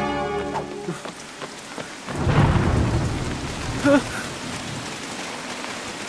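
Cartoon dark-magic sound effect: a rushing, rumbling whoosh with a low boom about two seconds in, after a held music chord fades out about a second in. A brief voice cries out near four seconds.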